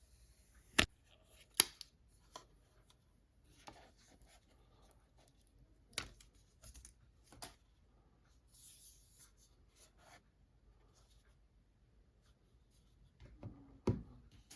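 Apple TV 4K packaging and parts being handled: a few sharp clicks and taps, loudest about a second in, with soft rubbing and rustling between them.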